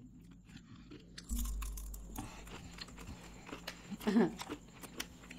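Chewing and crunching mouthfuls of chocolate, with many small crisp crunches. A dull bump comes just over a second in, and a brief voice sound from one of the eaters about four seconds in.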